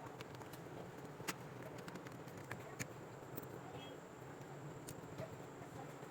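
Faint steady hum with a few light, sharp clicks scattered through it, from small tools worked at an electronics repair bench.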